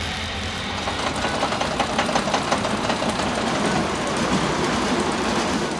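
Small family roller coaster train running on its steel track: a steady rattling clatter of wheels and cars, with dense clicking at its busiest in the first half.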